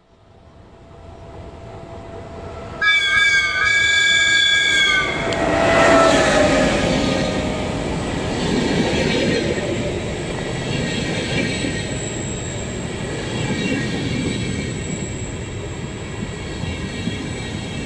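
A double-deck electric regional train sounds its horn for about two seconds, with one step in pitch, then runs past close by with a steady loud rumble of wheels and passing carriages.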